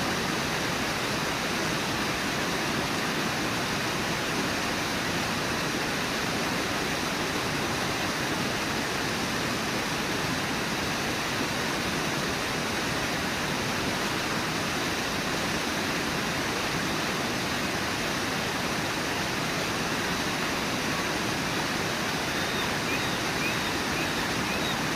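Brooks Falls, a waterfall on the Brooks River, rushing: a steady, unbroken roar of falling water.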